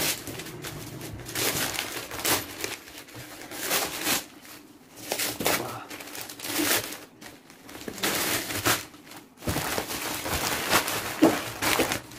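Gift-wrapping paper and plastic packaging rustling, crinkling and tearing in uneven spells as a parcel is unwrapped by hand.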